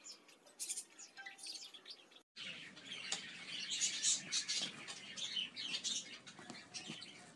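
Small birds chirping in short, quick calls. The sound cuts out for a moment a little over two seconds in, then comes back busier.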